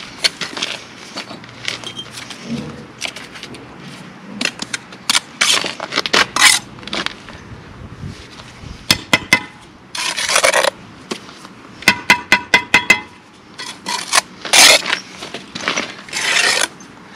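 Steel bricklaying trowel scraping mortar and tapping bricks as a wall is laid: irregular sharp taps and short scrapes, with a fast run of about eight taps two-thirds of the way through and several longer scrapes.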